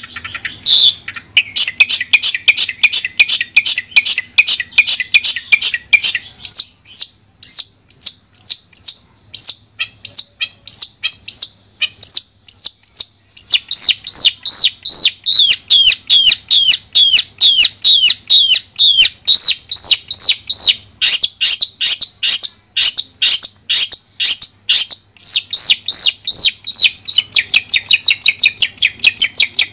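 Long-tailed shrike (cendet) singing a fast, unbroken run of sharp repeated chirps, several a second. The notes turn thinner and higher about six seconds in, then come back denser and louder from about thirteen seconds.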